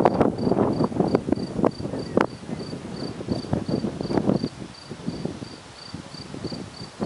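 A cricket chirping steadily, short high chirps about three times a second. Over it are uneven rumbling and knocks on the microphone, loudest in the first couple of seconds.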